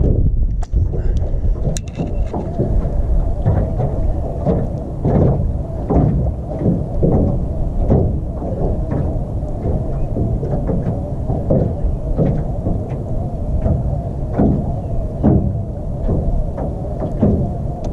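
Wind buffeting the microphone as a steady low rumble, with irregular short knocks every second or so.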